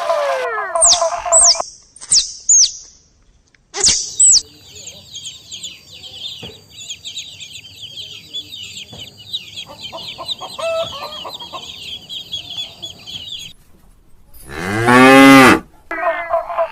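A run of animal calls: a few quick, high, falling chirps, then several seconds of continuous high-pitched chirping. Near the end comes one loud cow moo lasting about a second.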